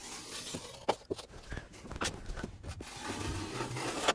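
Quiet scraping of a drywall taping knife drawn along the wall, pressing joint compound flat over a FibaFuse tape seam, with a few light clicks of the blade.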